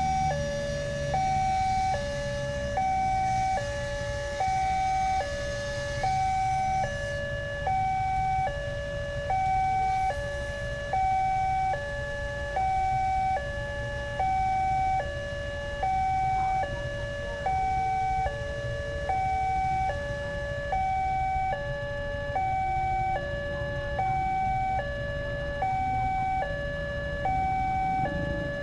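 Indonesian railway level-crossing warning alarm sounding its electronic two-tone chime, a higher and a lower note alternating steadily, about one pair a second, to warn road traffic that the crossing is closed for an approaching train. A low engine and traffic rumble runs underneath.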